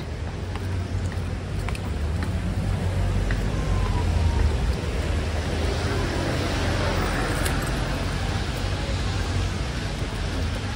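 Road traffic on a wet street: a steady low rumble, with a vehicle's tyre hiss swelling and fading about halfway through.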